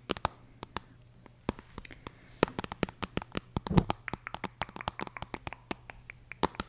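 ASMR tapping and handling: fingers and nails tapping, clicking and scratching on objects close to the microphone in a quick, irregular run of sharp taps, with one duller knock about four seconds in.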